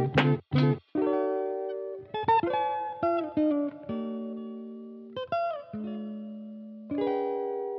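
Background music on guitar: a few quick strums, then plucked chords that ring out and slowly fade, a new one every second or so.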